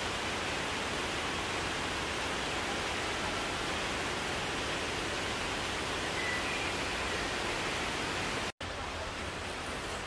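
Steady rushing hiss with a few faint, short high chirps. The sound drops out for an instant about eight and a half seconds in.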